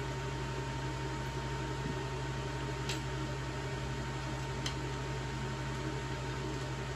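Steady electrical hum with an even hiss over it, and two light clicks about three and four and a half seconds in as the metal seat mechanism of a gaming chair is handled.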